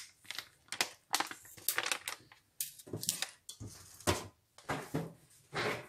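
Plastic flour bag crinkling and rustling in irregular bursts as it is shaken out over a stainless steel bowl and handled.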